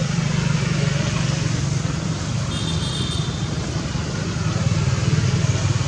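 Steady low rumble of background noise, with a brief faint high-pitched chirp about two and a half seconds in.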